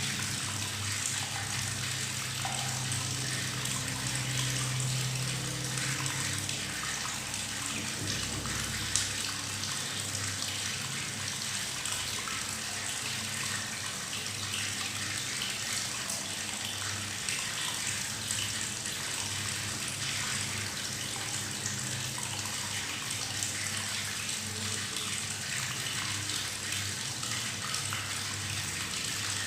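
Tap water running steadily into a bathtub, gurgling and bubbling as it splashes into the water. There is one brief click about nine seconds in.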